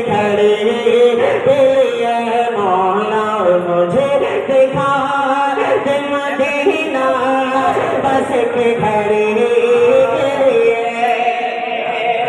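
A man's unaccompanied voice chanting a naat in a long, drawn-out melody, with held notes that glide up and down, heard through a loudspeaker system with echo.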